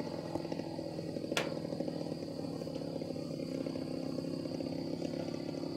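Single-cylinder two-stroke DLE 55cc gas engine of a giant-scale Great Planes Revolver RC airplane running at a steady pitch in flight. There is one sharp click about a second and a half in.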